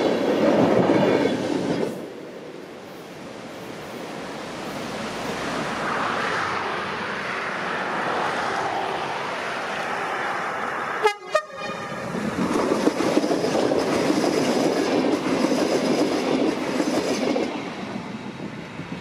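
Renfe UT-440 electric multiple-unit trains running on rails: wheels rumbling over a girder bridge, dropping away about two seconds in. A second train then comes along the track and goes by, loudest in the second half.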